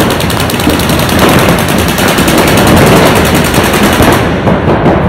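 Paintball marker firing a rapid, even stream of shots. The fire thins to a few scattered shots about four seconds in.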